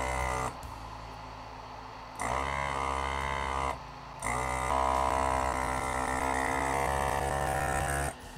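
Hakko FR-301 desoldering gun's built-in vacuum pump running in three trigger pulls as it sucks molten solder from through-hole pins: a short run that stops about half a second in, another of about a second and a half starting about two seconds in, and a longer one of about four seconds from about four seconds in. Each run starts with a rising whine as the pump spins up.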